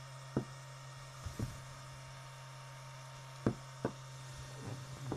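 Sharp clicks and knocks on a wooden tabletop as a small battery and its snap connector are handled and set down, five or six separate knocks over a steady low hum.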